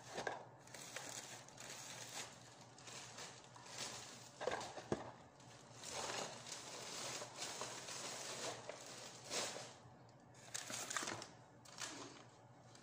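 Thin plastic carrier bag rustling and crinkling in irregular bursts as it is handled and things are pulled out of it, along with some paper rustling.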